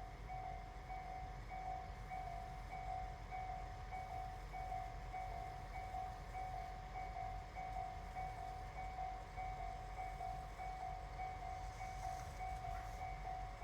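Japanese railway level-crossing warning bell ringing, a rapid, evenly repeated electronic ding that keeps going without a break, over a low rumble.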